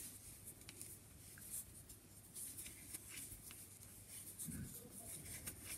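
Faint irregular clicking and scraping of 10 mm wooden knitting needles with the rustle of chunky wool yarn as stitches are purled.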